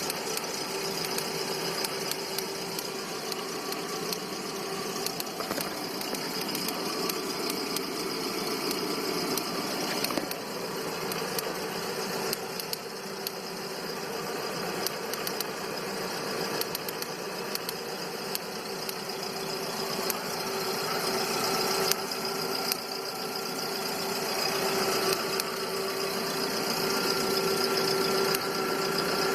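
Volkswagen Gol G5 engine idling with irregular clicking over its steady running. The owner says it comes with stumbles and a drop in revs; one workshop blamed the hydraulic tappets, another a cracked ignition coil losing spark and a worn throttle body.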